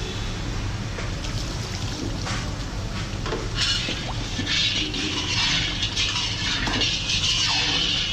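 Liquid splashing and pouring in a cooking pan, in uneven surges that grow stronger after the first few seconds, over a steady low hum.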